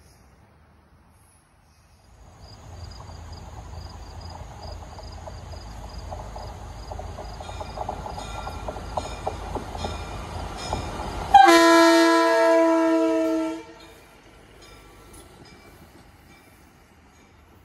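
Budd RDC-1 self-propelled diesel railcar approaching along the track, its running rumble growing louder. Then it sounds its horn, a loud blast of several tones held for about two seconds that cuts off sharply.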